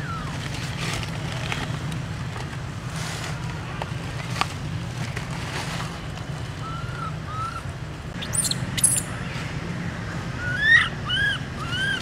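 Newborn long-tailed macaque crying in distress while an adult holds it by the tail. Two short arched squeals come a little past halfway, then a couple of sharp high shrieks, then three louder arched cries near the end, all over a steady low rumble.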